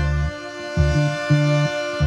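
Background music: sustained keyboard chords over a bass line whose notes come and go about every half second.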